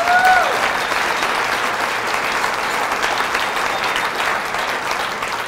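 Audience applauding steadily, with a voice in the crowd cheering in a brief up-and-down whoop at the very start.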